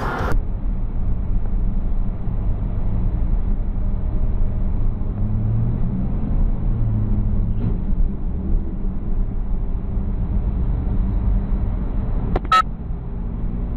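Steady low road and engine rumble of a car cruising on a highway, heard from inside the cabin, with one short sharp click near the end.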